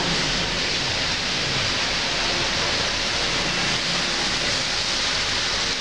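Heavy rain falling steadily on tree foliage, an even hiss that holds at one level throughout.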